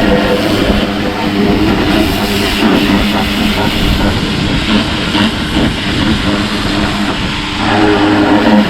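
Greenworks electric pressure washer running and spraying: a steady motor-and-pump hum under the hiss of the water jet. The hum weakens for most of the middle while the spray hiss carries on.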